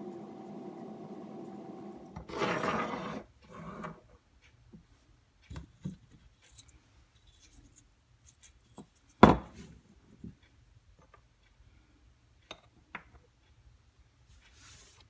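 Workshop handling sounds: a steady motor hum that stops about two seconds in, then a short loud hiss, followed by scattered clicks and knocks, with one sharp knock near the middle.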